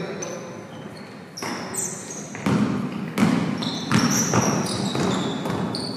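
Basketball bouncing on an indoor court during play, with several unevenly spaced thuds, mixed with short high-pitched squeaks of sneakers on the floor.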